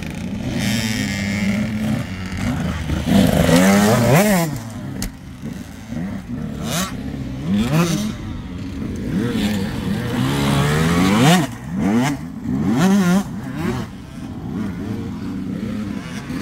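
Dirt bike engines revving up and falling away again and again as they are ridden, with a few sharp knocks in between.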